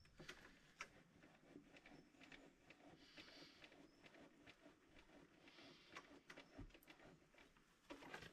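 Near silence, broken by a few faint scattered clicks and ticks.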